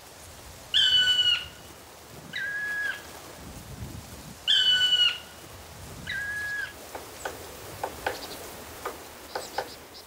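Black woodpecker calling: four clear, level notes, one about every one and a half seconds. Near the end come a few short, light taps of its bill on wood.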